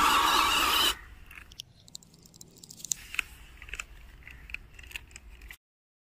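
1/12-scale RC Willys jeep driving through a muddy puddle: its motor and spinning tyres make a loud churning, splashing noise that cuts off sharply about a second in. Then it is quiet with scattered small clicks and ticks, and dead silence near the end.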